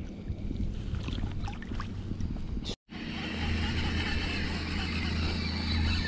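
Water sloshing and the handling of a fish in a landing net, with small clicks. Then, after an abrupt cut, a steady low engine hum over a broad hiss of wind and water.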